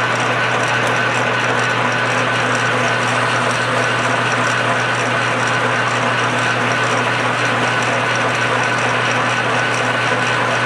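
Metal lathe running steadily with a constant hum and a high whine from its drive, while a hand-ground cutting tool faces the end of a hot-rolled steel bar.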